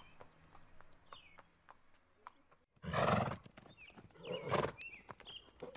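A horse whinnying loudly twice, about three and four and a half seconds in, over the clip-clop of hooves on dry ground.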